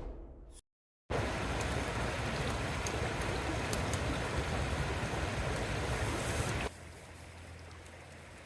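Wood fire in a fire pit burning with a steady hiss and a few sharp crackles. It starts after the tail of a whoosh transition effect and a moment of silence, and cuts to a quieter hiss near the end.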